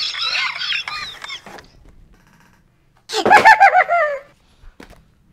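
High-pitched cackling laughter, then a louder run of rapid falsetto cackles about three seconds in, falling slightly in pitch.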